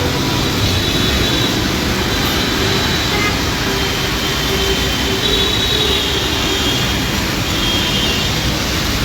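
Steady, loud wash of heavy rain mixed with city road traffic, with faint high tones drifting in and out.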